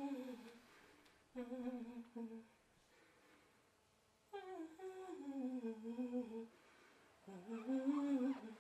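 A woman humming a slow, unaccompanied melody in four short phrases with pauses between them; the third phrase starts high and falls away.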